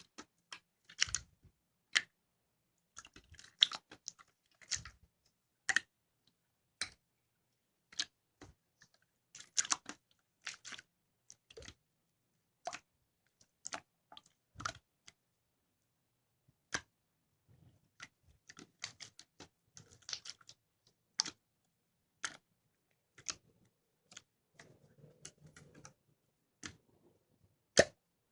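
Clear slime being handled, giving sharp, irregular clicks and pops, sometimes in quick clusters and sometimes with pauses of a second or more. There is a short softer squish near the end.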